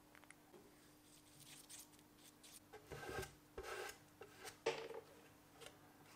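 A hand tool scrapes and rubs across a hard surface in a few short strokes, the loudest about three to five seconds in.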